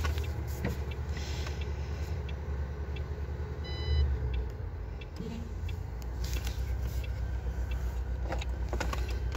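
Diesel engine of a MAN TGL truck idling, a steady pulsing low rumble heard inside the cab. Just before four seconds in, a short electronic warning beep sounds as the dashboard brings up an EDC engine-control fault.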